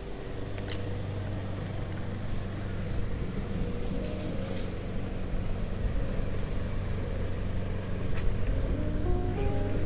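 Bass boat's electric trolling motor running with a steady low hum. Two sharp clicks come through, one near the start and one near the end.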